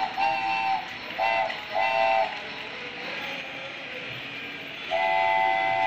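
Toy steam locomotive's electronic whistle tooting three short times, then one long toot from about five seconds in, over the steady whir of the toy train running on its plastic track.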